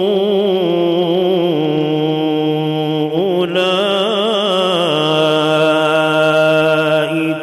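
A male qari reciting the Quran in the melodic tajwid style, drawing out long held notes with wavering, ornamented pitch. There is a brief pause for breath near the end.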